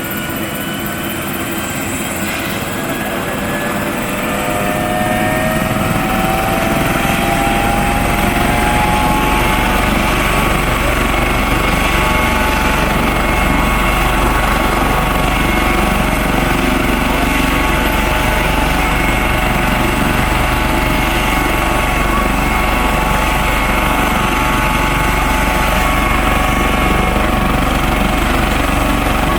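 Coast Guard helicopter's turbine engines spooling up: a whine rises in pitch and grows louder over the first several seconds, then the helicopter runs steadily at full power.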